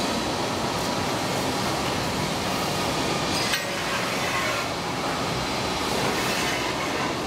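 Mechanical three-roll plate rolling machine running, its motor, gearbox and rolls giving a steady mechanical rumble with a faint metallic squeal. A single sharp metallic click comes about three and a half seconds in.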